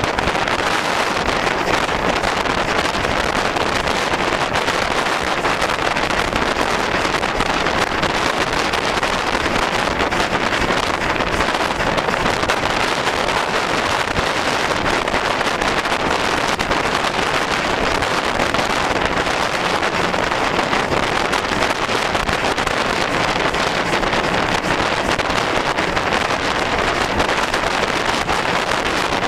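Ivatt steam locomotive running along the line, heard from the footplate with wind rushing over the microphone: a loud, steady rush.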